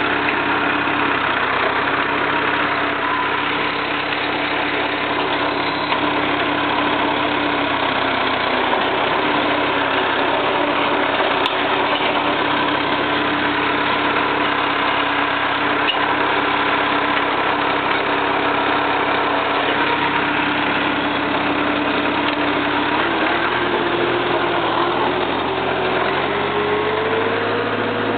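Jacobsen mower's four-cylinder Perkins diesel engine running steadily. Its pitch sags slightly about eight seconds in and climbs over the last few seconds as the engine speeds up.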